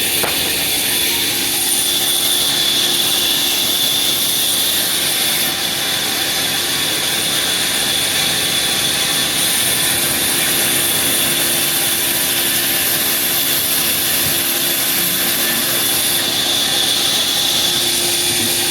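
Sawmill wood-cutting machinery running steadily: a constant machine noise with a high whine held over it.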